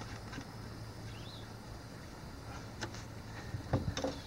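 Hand-handling noise at an outboard motor's oil fill cap and dipstick: a few faint clicks, then a cluster of louder knocks and clicks near the end, over a low steady hum.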